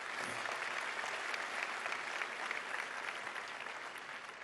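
Applause from a large seated audience, a dense, steady clapping that tapers off near the end.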